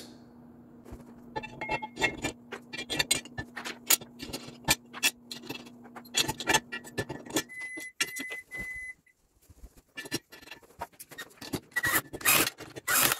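Steel bolts, washers and nuts clinking and knocking against a steel plow-mount bracket as they are fitted by hand, over a low steady hum that stops about seven seconds in. A cordless drill whirs in three short bursts a little after halfway, and louder knocks and whirring come near the end as the drill drives the bolts.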